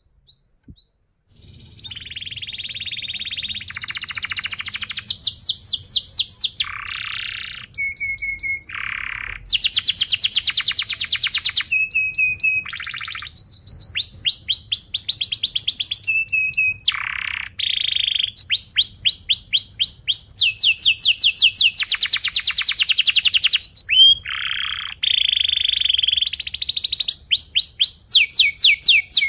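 Yellow domestic canary singing a long, nearly unbroken song of tight rolls, starting about a second and a half in: fast runs of repeated sweeping notes alternating with buzzy trills and short held whistles.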